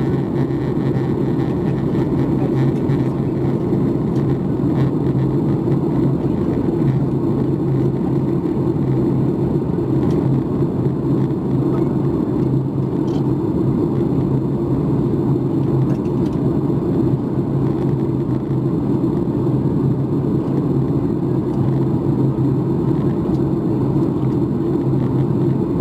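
Steady cabin noise inside a Boeing 737 MAX 8 in flight: jet engine and airflow drone with a constant low hum, unchanging throughout.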